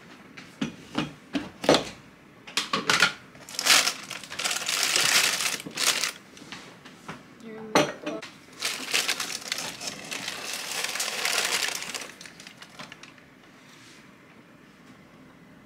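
Plastic bag of rolled oats crinkling in two long bursts as it is opened inside a plastic storage tub, after a few knocks of the tub and its lid at the start, with a sharp click between the bursts.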